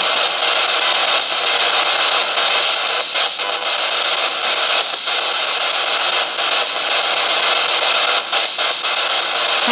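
S-Box ghost scanner (spirit box) sweeping the FM radio band: a loud steady hiss of radio static with a few brief breaks as it steps through the channels, no station coming through.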